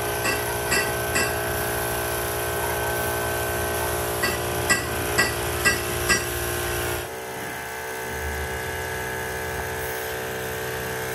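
Metal lathe running with a steady multi-tone machine whine, broken by sharp metallic clinks about twice a second in two short runs, near the start and again around the middle. About seven seconds in the sound steps down a little and runs on steadily.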